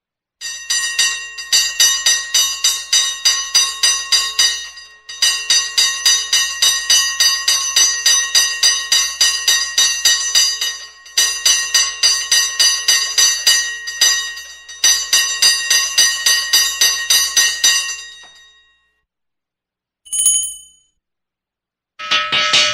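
Old-fashioned school hand bell shaken hard, its clapper striking about three to four times a second with a bright, clanging ring. It comes in four bursts with brief pauses, the last ringing out and fading. A short, higher-pitched ring follows near the end.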